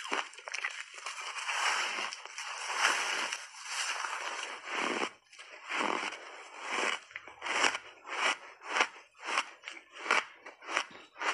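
Powder-coated shaved ice being bitten and chewed close to the microphone: a dense run of crunching, then from about halfway separate crunches about twice a second.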